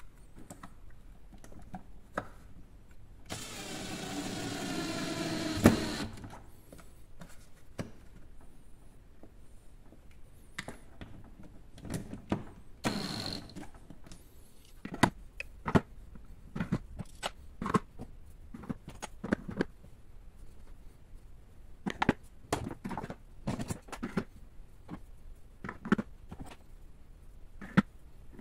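Cordless drill driver running for a couple of seconds, its whine rising in pitch as it drives a screw, ending in a sharp click; a second short burst of the drill about thirteen seconds in. Then a string of hard clacks as screwdrivers are slotted into their plastic holder.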